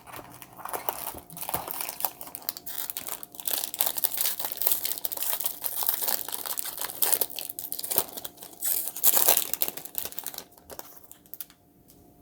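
Trading card pack wrapper being torn open and crinkled by hand, a dense irregular crackle that stops shortly before the end.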